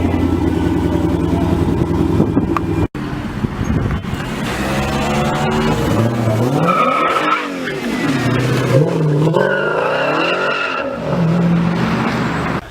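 High-performance car engines. One runs steadily, then after an abrupt cut about three seconds in, another revs with its pitch falling and rising several times.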